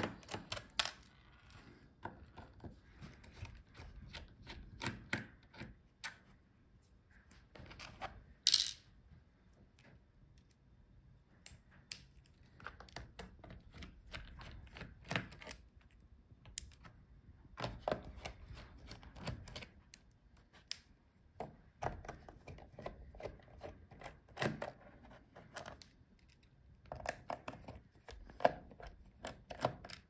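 Small precision screwdriver backing screws out of a laptop's plastic bottom cover: faint, irregular clicks, ticks and light scrapes of the bit in the screw heads and against the case, with one sharper click about eight and a half seconds in.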